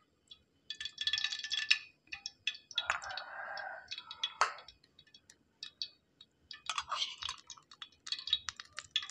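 Cooking oil heating in a wok, crackling and spitting in short irregular bursts with light metallic clicks and pauses between them.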